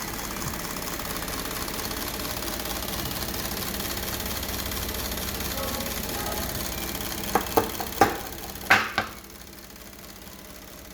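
Rover 200-series car engine running steadily while its repaired ECU is tested. About seven and a half seconds in come a handful of sharp clicks and knocks, after which the running sound drops quieter.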